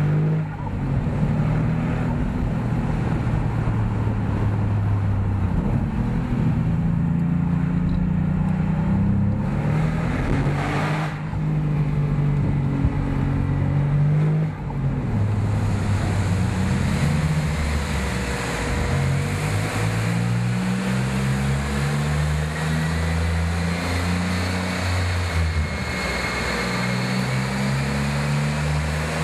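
Porsche 997.2 Turbo's twin-turbo flat-six through 70 mm Maxflo mufflers, heard from the open cabin with the top down. It accelerates and shifts gears several times, the engine note climbing and then dropping at each shift.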